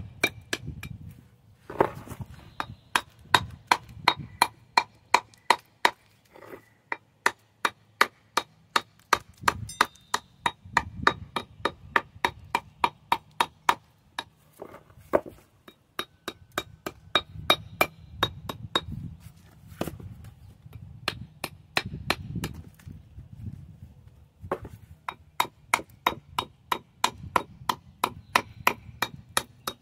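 Repeated hammer strikes on a capping piece, about two to three a second, with a slight ring, in runs with short pauses. They knock back the mark left by the saw-blade cut.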